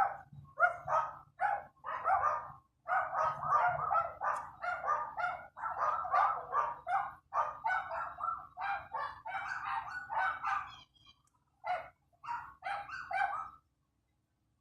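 Dog barking in rapid runs of several barks a second, with short pauses between runs, stopping near the end.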